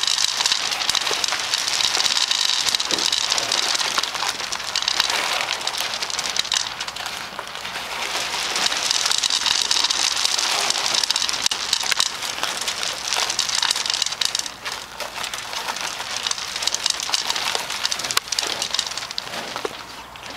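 Bison eating feed pellets from a wooden trough at close range: a dense, continuous crackle of pellets being crunched and pushed about by their muzzles.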